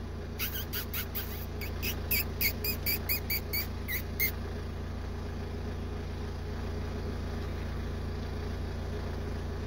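A run of about a dozen short, high squeaks, roughly three a second, over the first four seconds, with a steady low engine-like hum underneath throughout.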